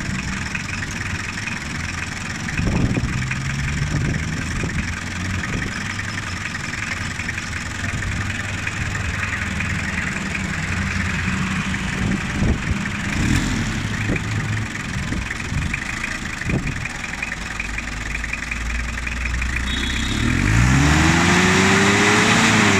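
Toyota 2C four-cylinder diesel engine idling steadily while its injection pump timing is being adjusted, with a few light knocks. Near the end it is revved up, rising in pitch.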